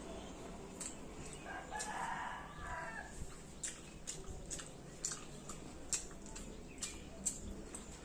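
A drawn-out animal call about a second and a half long, starting about a second and a half in. Scattered light clicks and taps come from eating rice by hand off a steel plate.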